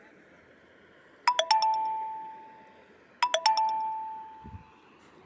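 A bell-like chime sounds twice, about two seconds apart: each time a quick run of three or four struck notes that ring on and fade away over a second or so.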